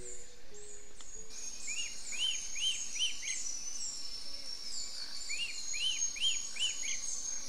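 Forest birds calling: runs of short, arched chirps repeated several times a second, over a denser layer of higher-pitched chirps and trills.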